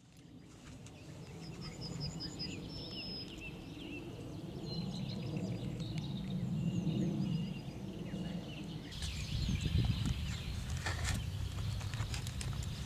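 Open-air ambience of small birds chirping and singing in quick short calls over a steady low rumble. In the last few seconds, rustling and clicks from close handling join in.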